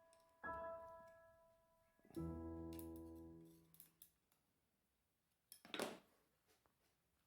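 Background music: a note rings out and fades, then a lower chord rings and dies away, leaving near silence broken by a short knock near the end.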